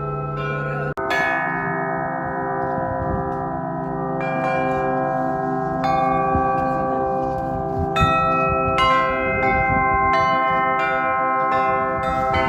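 Church bells ringing: several bells of different pitches struck one after another, their tones overlapping and ringing on, with the strikes coming faster in the second half. A brief break about a second in.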